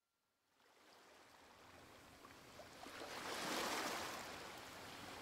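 A steady rushing noise, like running water, fades in from silence about two and a half seconds in, swells, then eases slightly.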